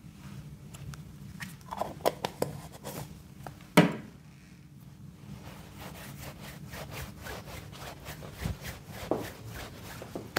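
Close scratchy rubbing and scraping strokes with scattered clicks. There is one sharp knock about four seconds in, a dull thud later, and a quick run of short strokes near the end.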